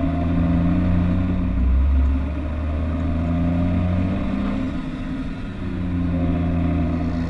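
Large farm machine's diesel engine running steadily, its low hum shifting slightly every couple of seconds.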